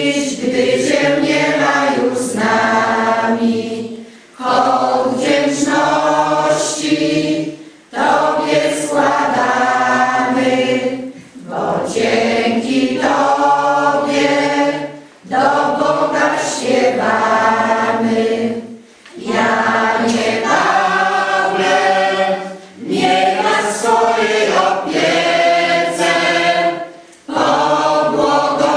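A choir sings in phrases of about three to four seconds, with a short breath between each phrase.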